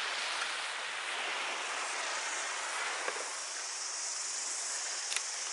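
Steady rushing noise of wind and surf on an open beach, with a few sharp clicks near the end.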